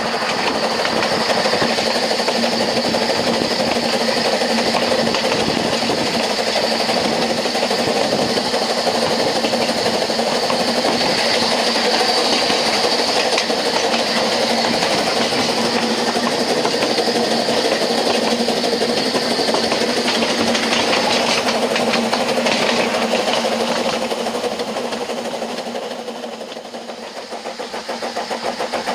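Narrow-gauge Double Fairlie steam locomotive working hard, heard through an open carriage window close behind it: a steady loud rush of exhaust and wheels on rail. It dips briefly near the end, then the exhaust beats come up again.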